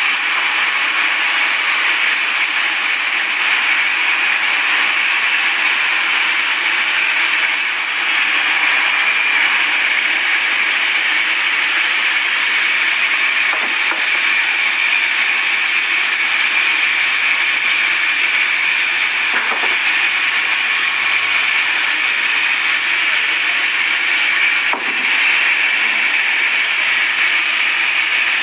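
Sawmill blade cutting through wood, a steady hissing rasp that holds evenly throughout, with a few faint knocks.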